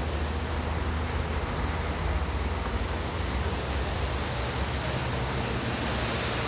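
Motorway traffic: a steady low engine rumble with broad tyre and road noise, with no sudden impacts.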